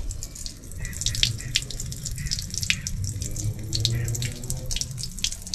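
Water streaming out of a motorhome's open low-point drain lines and splattering onto concrete in a continuous, irregular spatter: the fresh-water plumbing being drained for winterizing.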